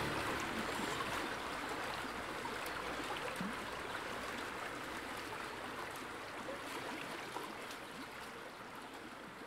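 Steady rushing noise like running water, fading slowly.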